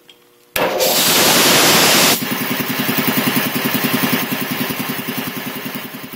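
1975 Quincy QR-325 belt-driven air compressor starting up about half a second in. Its 5 HP single-phase motor and pump come on with a loud rushing hiss for about a second and a half, then settle into a steady rapid chugging of about ten beats a second, the pump running slowed to about 621 RPM.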